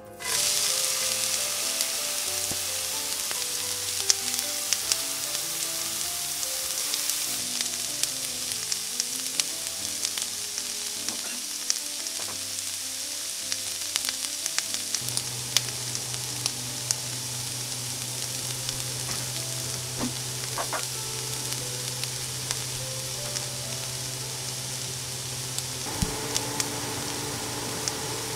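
Chopped kimchi frying in melted butter in a stainless steel pan: a loud sizzle that jumps up the moment the kimchi lands in the hot butter, just after the start, with frequent sharp crackles and pops as it is stirred with a silicone spatula.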